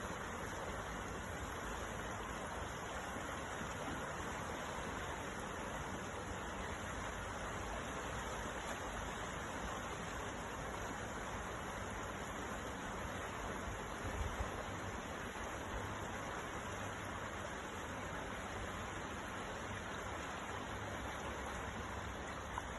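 Steady rush of wind and sea waves with no distinct breaks, and a brief low rumble about two-thirds of the way through.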